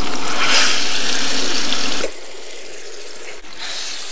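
Masala-marinated whole sardines sizzling loudly in hot oil in a frying pan as they go in. About two seconds in, the sizzle drops suddenly to a softer, steady hiss.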